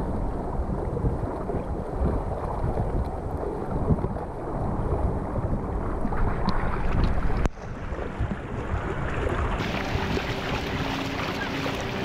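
Wind buffeting the action camera's microphone over the wash of shallow surf and water splashing around the float as it is pushed through the sea. About seven and a half seconds in the rumble drops away suddenly, and a brighter hiss of moving water takes over.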